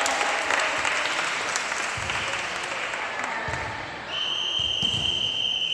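Spectators clapping and cheering, dying down over a few seconds. About four seconds in, a referee's whistle sounds one long, steady blast.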